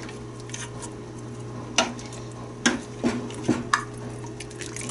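A plastic serving spoon stirring broth and meat in a stainless steel stockpot, knocking against the pot a few times about two seconds in and again around three seconds, over a steady low hum.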